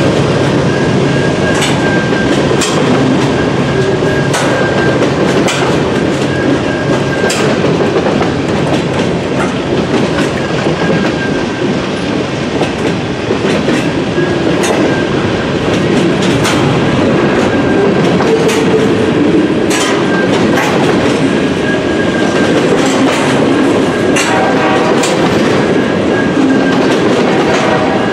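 Freight cars of a long mixed train rolling past: a steady rumble of steel wheels on rail, irregular clicks as wheels cross rail joints, and a thin, steady high squeal.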